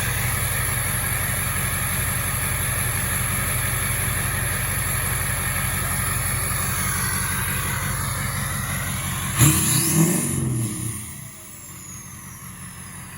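Ford 6.0 Powerstroke V8 turbodiesel running steadily through a 5-inch MBRP straight-pipe exhaust. About nine and a half seconds in, the sound changes suddenly with a loud burst and a rising whine, then drops quieter with a thin falling whistle.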